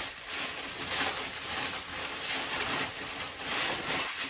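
Clear plastic wrapping crinkling and rustling as metal garment-rack parts are pulled out of it by hand.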